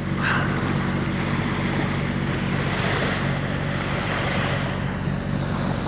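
Small motorboat's engine running at a steady speed, a constant low hum, with water rushing along the hull and wind on the microphone.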